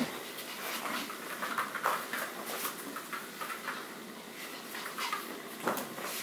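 A Pomeranian's claws clicking on the floor as it shifts about: a string of light, irregular taps, with one louder tap about five and a half seconds in.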